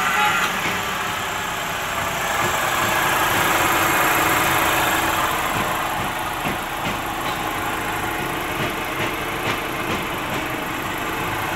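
Mitsubishi GDI petrol engine idling steadily with the air conditioning switched on, ready for the A/C system to be recharged with refrigerant.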